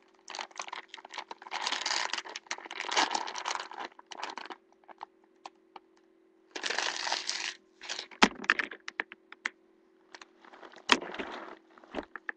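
Candy wrappers crinkling and rustling close to the microphone in two longer stretches, with scattered sharp clicks in between, over a faint steady electrical hum.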